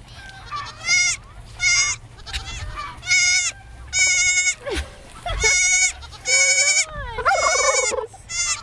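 Baby goat bleating over and over in short, high-pitched cries about a second apart: a lost kid calling for its mother. A lower, wavering call sounds once near the end.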